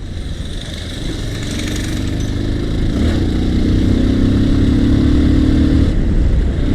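Motorcycle engine running, its note rising slowly as it grows louder, then dropping off briefly near the end.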